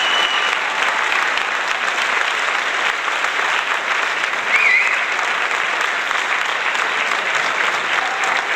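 Crowd applauding steadily, with a brief high call heard over the clapping about four and a half seconds in.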